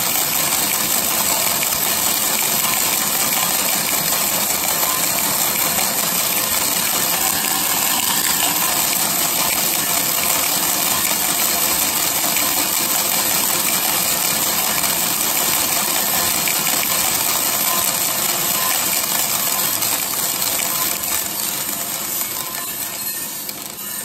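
600 g of green coffee beans tumbling and rattling in the drum of a 3 kg Mill City coffee roaster turning at 80 rpm. A steady, dense rattle that fades away over the last few seconds.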